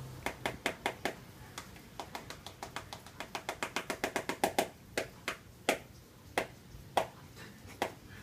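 Typing on a smartphone: quick, irregular clicks of the keys, running fast for about a second and a half in the middle, then single taps spaced further apart near the end.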